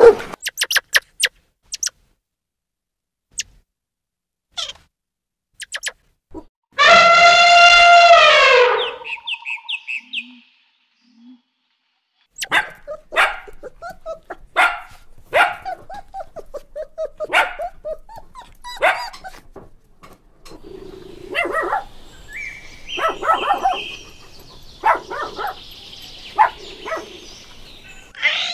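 Dogs barking and yipping in quick runs of short barks and whimpers. About seven seconds in there is one long held call lasting about two seconds.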